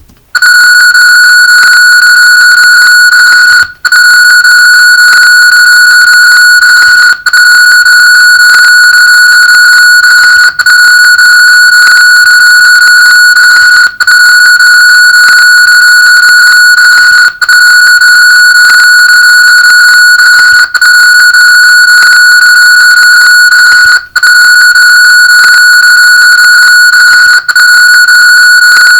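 A loud, steady high-pitched tone with several overtones, broken by a brief dropout about every three and a half seconds. It is a cartoon clip's soundtrack sped up so far that it has collapsed into a single electronic-sounding pitch.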